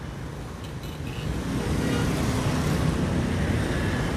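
City road traffic: engines and tyres, getting louder about a second and a half in as vehicles pass.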